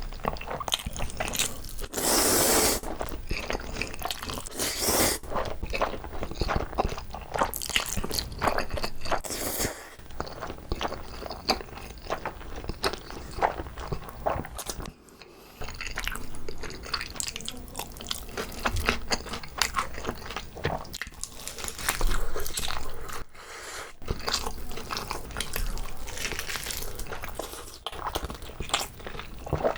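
Close-miked eating sounds: a steady run of bites and chewing on braised whole pork trotter (jokbal). There are two louder, longer crunching bursts, about two and five seconds in.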